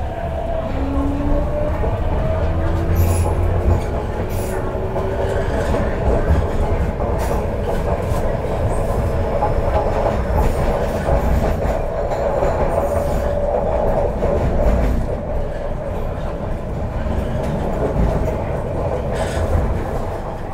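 Motor car of a CNR Changchun-built MTR C-train, with its IGBT-VVVF traction inverter and motors whining in rising tones in the first few seconds as the train accelerates away from a station. The whine then settles into steady running at speed, with rail and wheel noise and occasional clicks.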